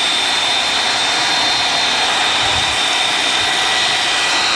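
Handheld pressure washer with a foam-bottle attachment running and spraying: a steady rush of spray with a constant high whine from the motor and pump.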